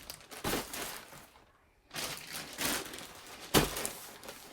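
Rustling and crinkling of packaging being handled, in several bursts, with one sharp thump about three and a half seconds in.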